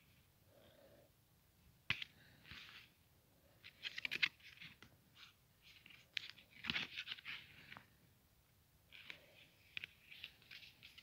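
Packaging rustling and crinkling as it is handled, with irregular sharp clicks and crackles.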